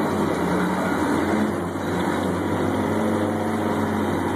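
Fire engine running steadily on the road, heard from inside its cab.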